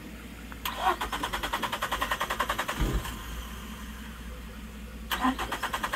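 A Suzuki Every van's small three-cylinder engine being cranked by its starter: an even, rapid chugging for about two seconds, then a second short burst of cranking near the end.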